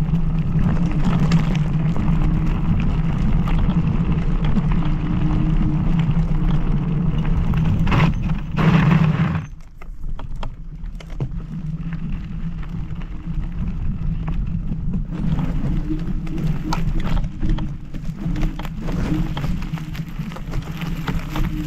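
Riding noise from an MS Energy X10 electric scooter: steady wind and road rumble with rattles and knocks from bumps. The noise drops away sharply about nine and a half seconds in and builds up again a few seconds later.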